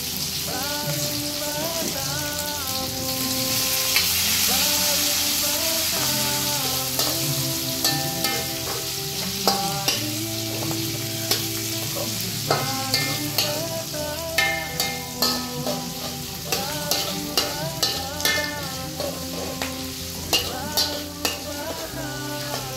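Food sizzling on a barbecue grill, a steady hiss, over background music with changing bass notes and a melody. From about midway, sharp taps come often, roughly twice a second.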